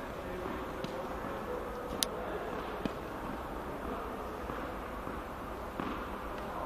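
Steady hum of an indoor hall with a faint steady tone, broken by a few light taps of a small tennis racket against the ball and court surface, the sharpest about two seconds in.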